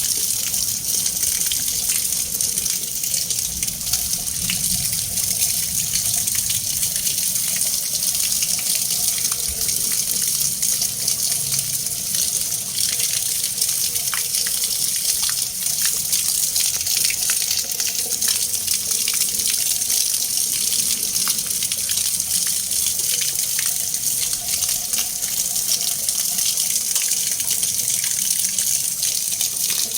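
Water being churned and mixed: a steady rushing like a running tap, with small splashes and droplet ticks all through.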